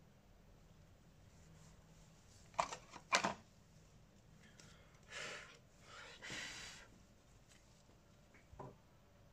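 Handling noises from a repair bench: two sharp clicks or taps about half a second apart, then two short scraping or rustling sounds and a faint click near the end.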